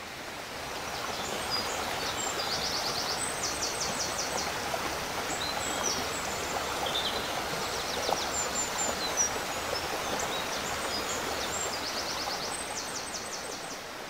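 Mountain stream rushing over rocks below a waterfall, a steady rush of water. A small bird sings short high trills over it several times.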